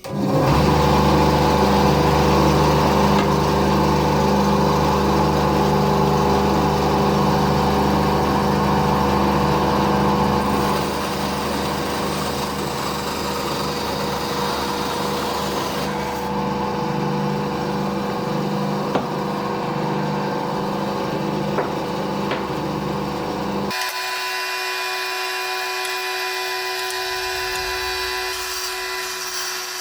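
Parkside 350 A1 bandsaw running and cutting wood, a steady machine sound with a strong low hum. It comes in suddenly, drops a little after about ten seconds, and its low hum cuts out abruptly later on while the higher tones carry on.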